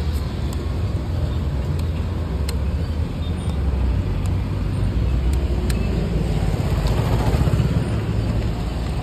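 Steady low rumble of motor vehicles and road traffic, swelling slightly in the middle.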